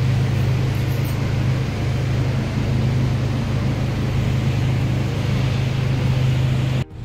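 Steady low machine hum, a constant drone with an even noise over it. Just before the end it cuts out for an instant and comes back a little lower in pitch.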